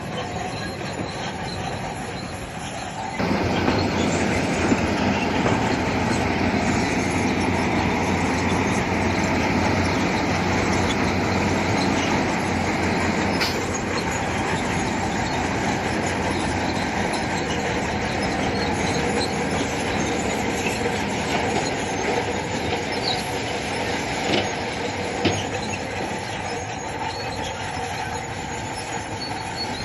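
Crawler bulldozer working, its engine running under load and its steel tracks clanking and squealing; the noise jumps louder about three seconds in and eases a little near the end, with a couple of sharp clanks late on.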